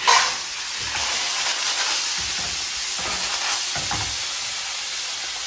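Fresh lupini clams tipped into a hot frying pan of olive oil and garlic: a sudden loud burst of sizzling as they hit the oil, settling into a steady sizzle as they cook.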